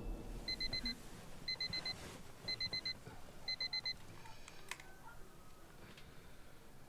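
Phone alarm beeping: four groups of four quick, high beeps, one group a second, stopping about four seconds in, followed by a single sharp click.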